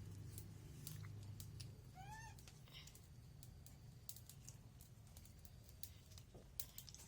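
Near silence: a faint low hum, a few small scattered clicks, and one brief high squeak about two seconds in.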